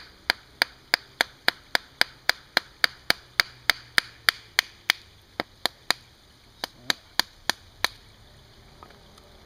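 Wooden baton tapping the spine of a knife blade to split a block of wood along the grain (batoning), in careful, even strikes of about three to four a second. There is a brief pause about six seconds in, and the tapping stops near the end.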